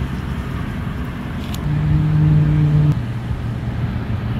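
Small bait-well aerator air pump humming steadily as it bubbles air into a cooler of live bait. For about a second in the middle the hum gets louder and higher, then settles back.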